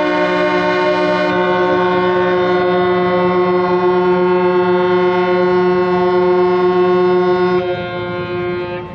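Several ship horns sounding together in one long, steady blast, the traditional whistle salute as a new ship is launched. The lowest horn stops near the end and the others cut off about a second later.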